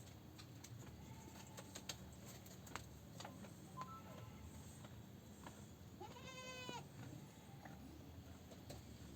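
A goat bleating once, a short wavering call about six seconds in, with a few faint scattered clicks around it.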